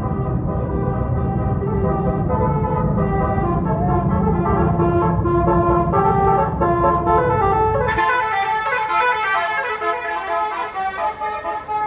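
Tour bus's multi-tone telolet air horn (Basuri-style) playing a melody of stepped notes over the bus engine's rumble. About eight seconds in, the engine rumble drops away and the horn notes carry on brighter and higher, then fade out near the end.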